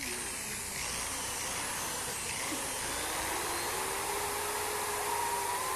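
Electric drill running steadily, with a faint whine that comes in about three seconds in.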